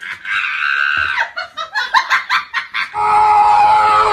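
Laughter in quick repeated bursts, then a long high-pitched held cry starting about three seconds in.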